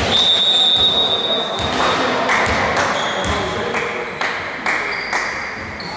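A referee's whistle blows a steady high note for about two seconds, then a shorter, fainter blast about three seconds in. Scattered thuds of a volleyball bouncing on the court and murmur from the hall run underneath.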